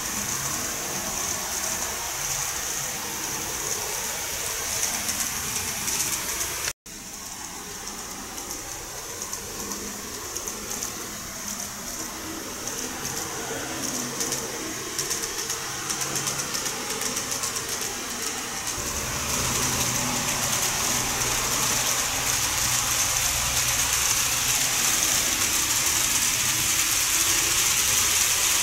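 N-gauge model trains running on the track: a steady high motor whine with the rattle of small wheels on the rails. It cuts out for an instant about seven seconds in, and grows louder in the second half as a train runs close by.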